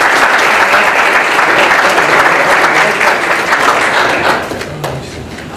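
A roomful of people applauding, dying away about four and a half seconds in with a few last claps.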